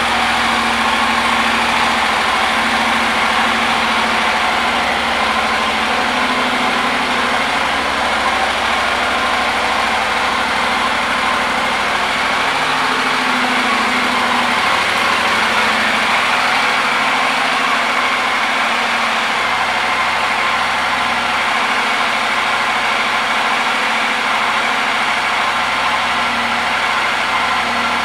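Honda NC750X's parallel-twin engine idling steadily.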